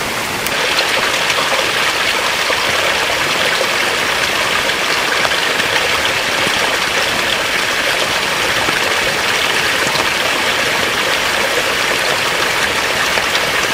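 Steady rushing water, getting a little louder about half a second in.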